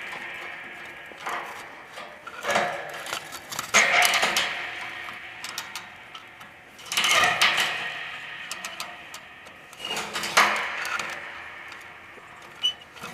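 Repeated metallic clanks and scrapes as a 500-gallon steel propane tank is shifted into position, each dying away over a second or two.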